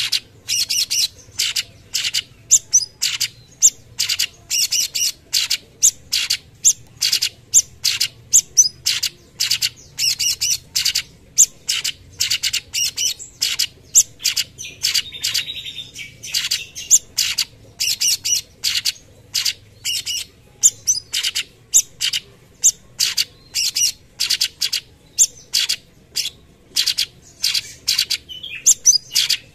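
Cucak cungkok, a leafbird, singing a fast string of short, sharp notes, about three a second, with a brief longer buzzy phrase about halfway through.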